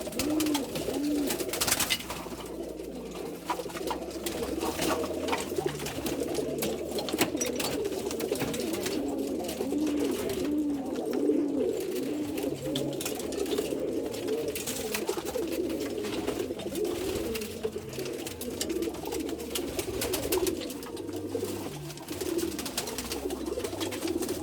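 Domestic pigeons cooing steadily, several birds overlapping in repeated rising-and-falling coos, with scattered clicks throughout.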